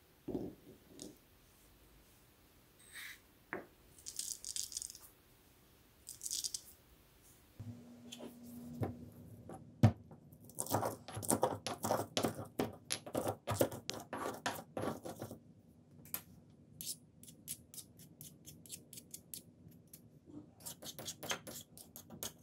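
A garlic clove dropped into a marble mortar with a click, then a marble pestle pounding and grinding it: a long run of sharp stone-on-stone knocks and gritty scrapes, busiest in the middle. Near the end a metal spoon clicks and scrapes against the inside of the marble bowl.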